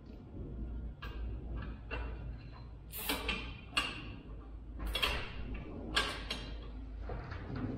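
A zip tie being cinched tight by hand, its ratchet zipping in about a dozen short, irregular pulls.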